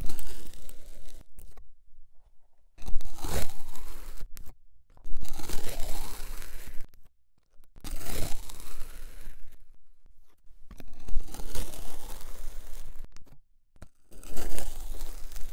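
Knife blade slicing down through packed kinetic sand, each cut a crunchy, grainy tearing sound. About six separate cuts, each lasting a second or two, with short quiet gaps between them.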